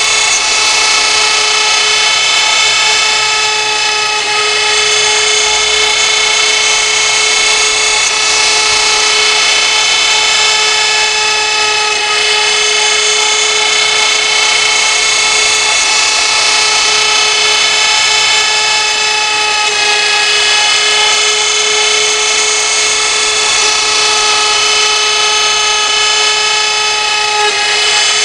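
CNC router spindle whining steadily at high speed while the bit cuts, over a constant hiss of cutting.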